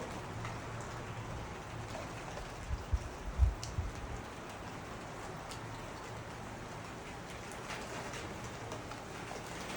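Steady rain falling, an even hiss of drops, with a few low thumps about three seconds in.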